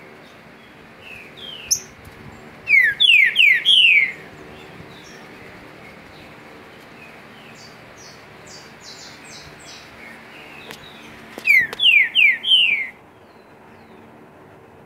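Green-winged saltator (trinca-ferro) singing its 'pedrada' song. It gives two loud phrases about nine seconds apart, each a quick run of four falling notes, with a few softer notes between them.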